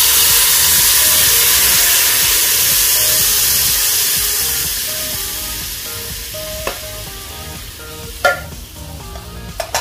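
Coconut milk poured into a hot frying pan, sizzling: a loud hiss that starts suddenly and dies down steadily as the milk covers the pan and begins to heat, the first stage of cooking it down into latik. A few sharp clicks near the end.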